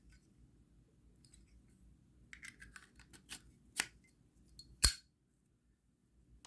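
Brass and chrome Zippo lighters handled: light metallic clicks and clinks, then two sharp clicks about a second apart, the second the loudest.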